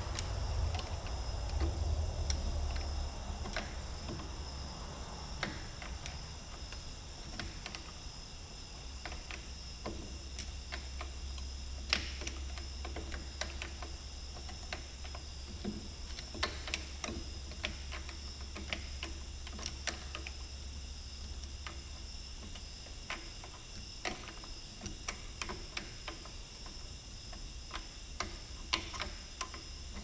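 Irregular light metal clicks and ticks of a hand tool working a stuck, rounded-off threaded part loose on a Cat D3C dozer's pilot control joystick, over a steady low hum.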